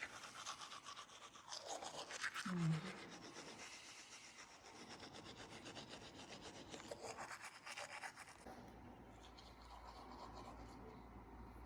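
Faint rubbing and rustling, with a short low squeak about two and a half seconds in.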